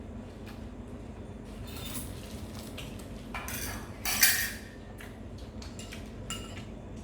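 Cutlery and dishes clinking and scraping during a meal: scattered light clicks, with a louder clatter about four seconds in.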